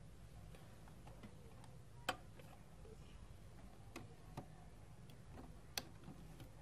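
A few scattered sharp clicks and taps, two of them louder, as hands work cables and connectors inside an open desktop computer case while a hard drive is connected, over a faint low hum.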